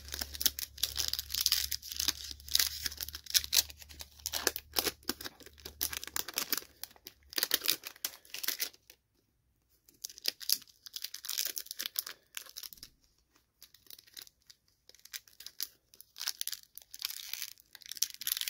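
Clear plastic wrapper of a vintage baseball-card pack crinkling and tearing as fingers peel it off the stack of cards. The crackling comes in uneven spells, with a short silent pause about nine seconds in.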